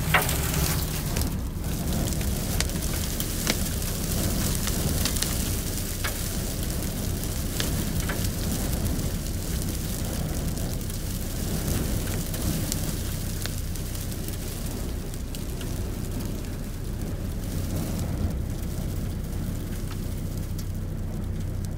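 Wind-driven dust and grit pelting a Toyota's windscreen and body in a dust storm: a dense rushing hiss peppered with sharp ticks, hard enough to pit the glass and paint. Under it runs the steady low hum of the vehicle's engine.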